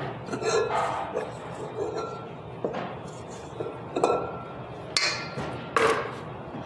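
Silicone spatula scraping sablé dough off onto plastic wrap on a stone counter: soft scraping and plastic rustling, broken by several sharp taps and knocks, the loudest near the end.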